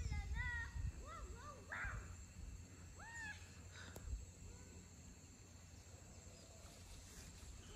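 Spider monkeys calling: a quick series of short, rising-and-falling pitched notes in the first two seconds, then a few single calls that fade away.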